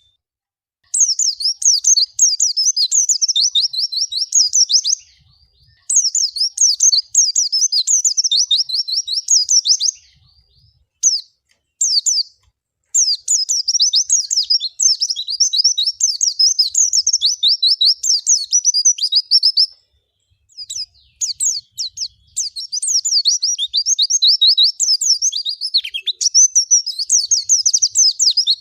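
White-eye (pleci) singing long phrases of rapid, high twittering notes, broken by short pauses, with a few single call notes between phrases about eleven seconds in.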